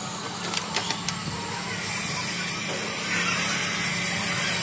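Workshop machinery running with a steady low hum, and a few sharp metal clicks about half a second to a second in as a steel fork tube is handled.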